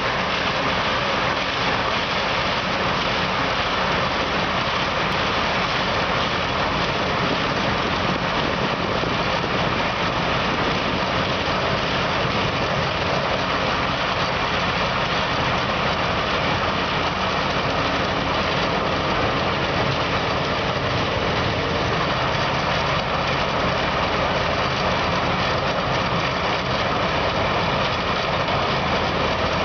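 Tracked cold milling machine running steadily under load, its diesel engine and cutting drum making one loud, even, unbroken noise as it mills the ground surface.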